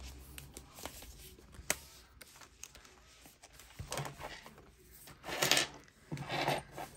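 Light handling sounds of paper money and papers: a few sharp clicks early, then short bursts of rustling near the end.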